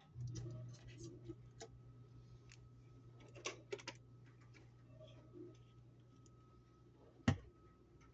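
Light clicks and taps of kitchen utensils and containers being handled during food preparation, with one sharper knock near the end. A steady low hum comes on at the start and runs underneath.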